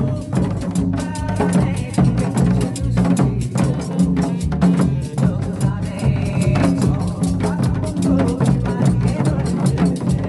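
Janggu, the Korean hourglass drum, played in a fast, steady rhythm of strikes over backing music.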